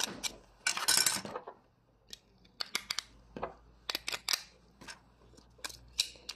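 Clear plastic wrapping around a battery-powered LED string light crinkling as it is handled, with a loud rustle about a second in, then scattered small clicks and taps.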